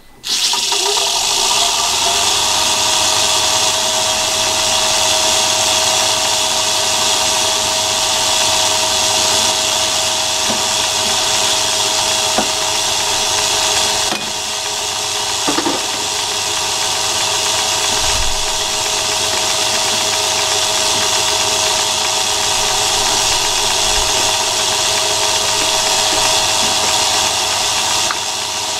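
EMCO metal lathe switched on and running steadily, its spindle spinning a drill bit held in the chuck, with a steady whine over the motor and gear noise, at work drilling small spacers.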